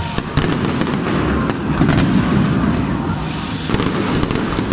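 Fireworks display going off in a continuous barrage: many sharp cracks and bangs from bursting shells over a steady dense rumble.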